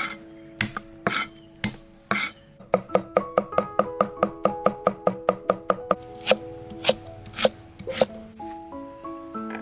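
A cleaver chopping on a chopping board: a few slow strokes, then rapid, even chopping at about five strokes a second as garlic is minced, then four slower cuts spaced about half a second apart as a root is cut into chunks. Background music with sustained tones plays underneath.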